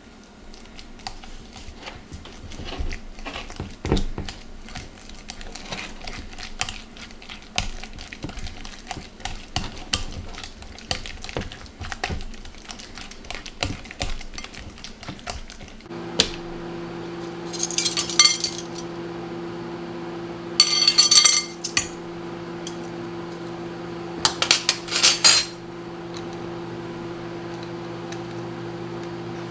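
Dishes and cutlery clattering: many small clinks and knocks. About halfway through a steady appliance hum starts, and three short harsh bursts rise over it.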